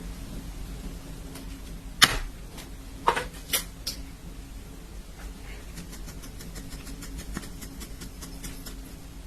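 Kitchen clatter of dishes and utensils: a sharp knock about two seconds in, a cluster of clinks around three to four seconds, then light ticking, over a steady low hum.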